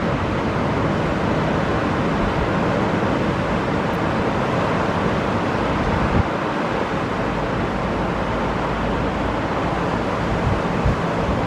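Ocean surf breaking and washing on a beach in a steady roar, with wind buffeting the microphone in low thumps about six seconds in and near the end.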